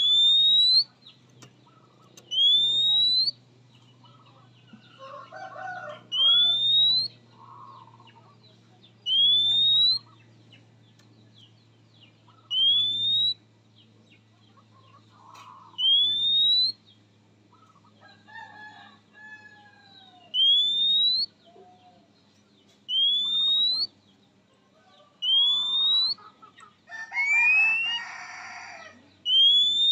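Oriental magpie-robin giving its typical rising whistle call about every three seconds, each note sliding upward and lasting under a second. Softer chirps come between the whistles, and a louder cluster of varied notes comes near the end.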